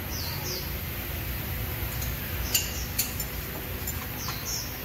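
Two sharp metallic clinks about half a second apart near the middle, from metal being touched while the underside of a car on a lift is checked. A steady low hum runs under them, with short high bird chirps at the start and near the end.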